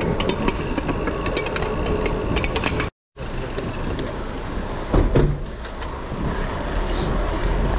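Street traffic: motor vehicles running and idling, a steady rumble with scattered clicks and rattles. The sound drops out completely for a moment about three seconds in.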